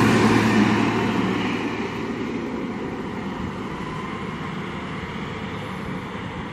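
Diesel engine of a Volvo L70C wheel loader running as the loader drives off, loud at first and fading over the first two or three seconds as it pulls away, then holding steady.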